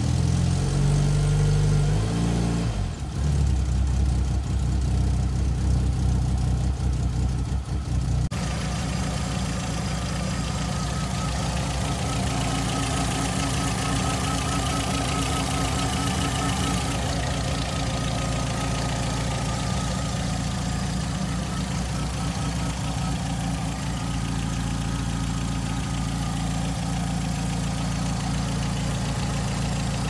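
Volkswagen 1.6 SR four-cylinder engine idling steadily, heard up close in the engine bay, with a leak that the owner is listening for and cannot yet locate. For the first eight seconds it is preceded by a louder, deeper sound with shifting low tones that cuts off suddenly.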